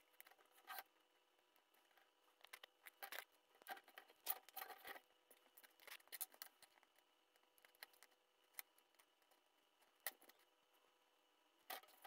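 Near silence, broken by faint irregular clicks and scrapes of small electronic parts and wires being handled on a tabletop.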